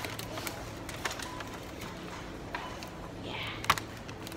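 Scattered light clicks and crackles of a plastic punnet of grapes being handled, over the steady low hum of a supermarket.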